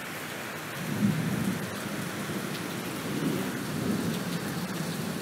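Steady rain hissing, with a low rumble of thunder that swells about a second in and carries on.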